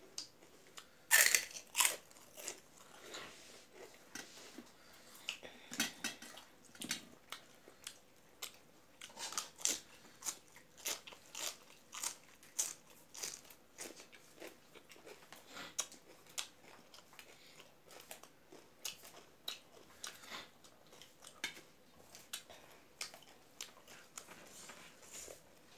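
Close-up eating sounds: crisp fried papad crunched between the teeth, loudest about a second in, then a long run of chewing with many small crunches and mouth clicks.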